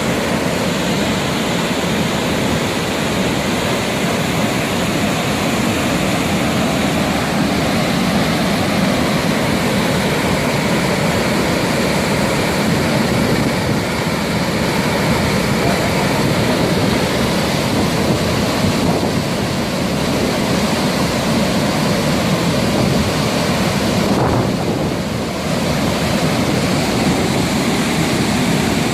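Steady loud rush of water from the large Haew Narok waterfall.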